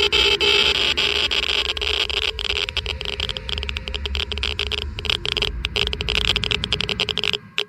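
Geiger counter clicking rapidly and irregularly, several clicks a second, over a steady hiss and hum; the low hum drops away near the end.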